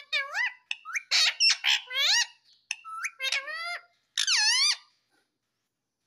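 Indian ringneck parakeet calling: a quick run of short, high, squeaky calls that glide sharply up and down in pitch, stopping about five seconds in.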